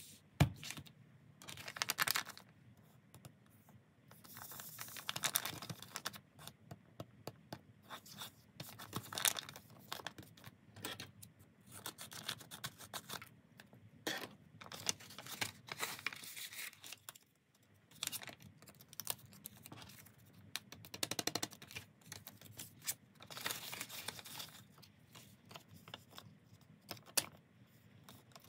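Paper being handled and opened: crisp rustling, sliding and tearing of paper and card, with scissors cutting paper, in many short irregular bursts.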